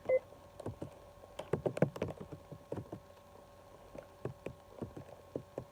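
Typing on a computer keyboard: irregular runs of key clicks, thickest about a second and a half in. A short electronic beep sounds right at the start.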